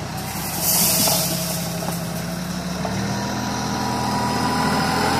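TYM compact tractor's diesel engine running steadily. There is a short loud hiss about a second in, and the engine note shifts about three seconds in.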